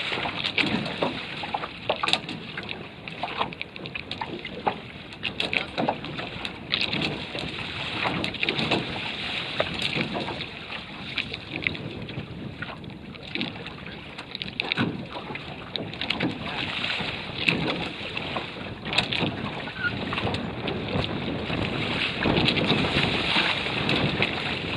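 Water rushing and splashing against the hulls of a Prindle 16 catamaran under sail, with many irregular slaps from the chop and wind buffeting the microphone.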